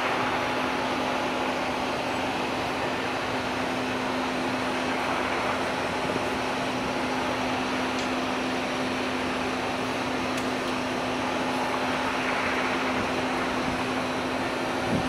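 Steady drone of a large ship's machinery and ventilation fans, with one constant low hum beneath it.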